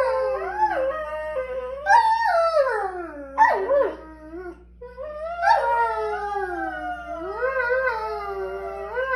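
Borzoi howling in long calls that glide up and down in pitch, two voices overlapping at times. There is a brief lull about four seconds in, then one long howl to the end.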